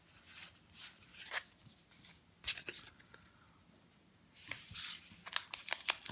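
Baseball cards being flipped through by hand, a few short papery swishes. After a quiet stretch, about four seconds in, comes the rapid crinkling of a wrapped card pack being picked up and handled.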